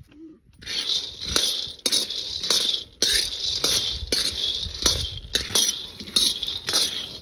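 Metal spatula stirring raw peanuts in a large iron kadai for dry-roasting, the nuts rattling and scraping against the pan in strokes about twice a second. The stirring starts about a second in, after a brief quiet.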